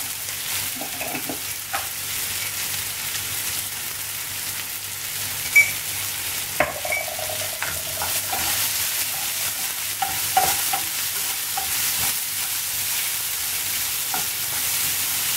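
Chopped onions with cashews and mustard seeds sizzling as they sauté in sesame and coconut oil in a frying pan, stirred with a wooden spoon. The steady sizzle is broken by a few sharp knocks of the spoon against the pan, the loudest near the middle.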